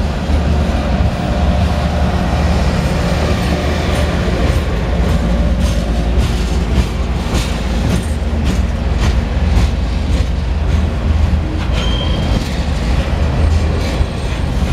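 Freight train of Tropicana insulated juice boxcars rolling past close by: a steady low rumble of steel wheels on rail, with clicks as the wheels cross rail joints. A brief high wheel squeal comes near the end.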